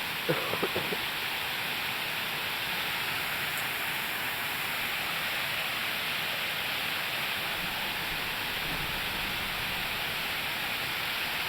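Steady rush of falling water, an even hiss, with a brief cluster of short pitched sounds near the start.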